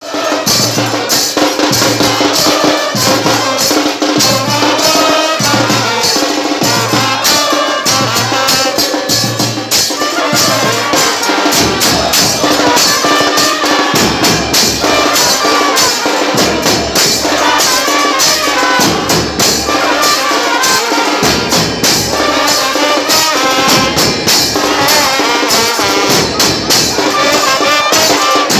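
Football supporters chanting a terrace song in unison, backed by a fan band's drums and cymbals keeping a steady beat.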